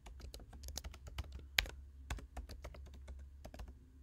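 Typing on a computer keyboard: a quick, uneven run of key clicks, with one louder keystroke about one and a half seconds in.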